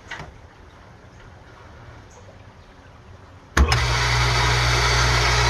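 A sharp click about three and a half seconds in, then the well pump's electric motor starts and runs with a steady, loud hum. The pump is cutting in because the water turned on in the house has dropped the system pressure.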